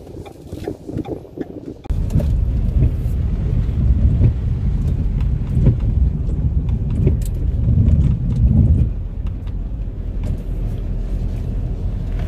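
Car driving, with engine and road rumble heard from inside the cabin. The low rumble starts suddenly about two seconds in and then holds steady, with a few swells.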